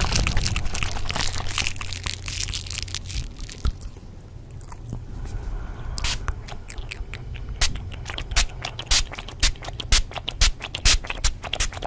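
ASMR crunching and crackling: dense crackle that thins out, then a quieter stretch, then from about halfway in sharp crisp clicks, a few each second, over a steady low hum.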